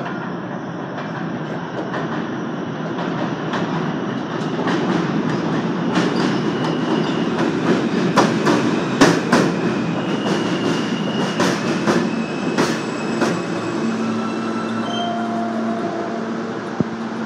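R160 subway train pulling into an elevated station. The noise builds as it nears, its wheels clack over the rail joints with brief high wheel squeals, and it settles into a steady hum near the end as it stops alongside the platform.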